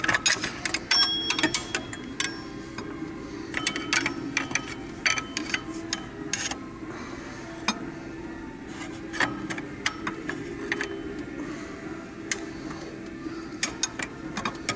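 Metal hand tools clinking and clicking irregularly as a fan clutch wrench and pulley holding tool are set on the water pump pulley to tighten the fan clutch nut. A couple of brief metallic rings sound about a second in, over a steady low hum.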